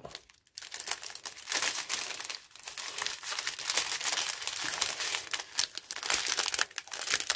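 Clear plastic zip-lock bags of diamond-painting drills crinkling as a hand shuffles through a bundle of them; the irregular crackling starts about half a second in.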